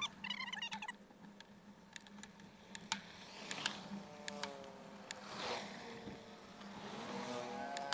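Riding noise from a bicycle on a concrete road, with scattered clicks and rattles, and the buzz of small motorcycle engines on the road, one rising in pitch as it comes closer near the end.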